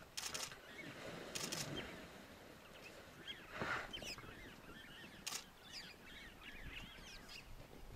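Short bursts of rapid clicking, twice in the first two seconds and once about five seconds in, over birds chirping; a brief rush of noise near the middle.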